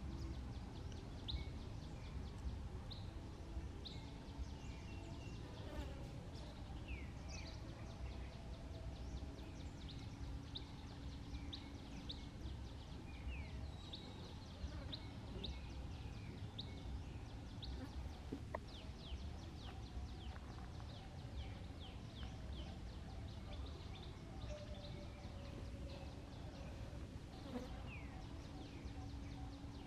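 Outdoor ambience: many short, high chirps from small birds, a few each second, over a steady low rumble and a faint on-and-off hum.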